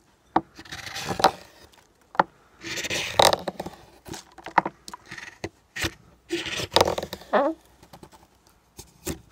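Large bent carving gouge (клюкарза) cutting curled shavings from the hollow of a wooden bowl, each stroke a scraping slice lasting about a second. There are about four such strokes, with short sharp clicks in between.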